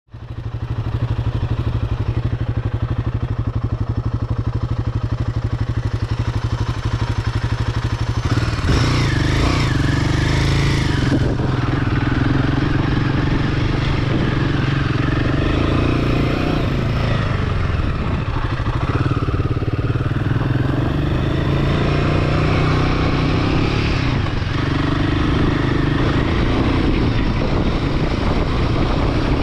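Royal Enfield Himalayan 450's single-cylinder engine running, starting abruptly and holding a steady note at first. About eight seconds in, the engine note rises and keeps changing as the bike is ridden.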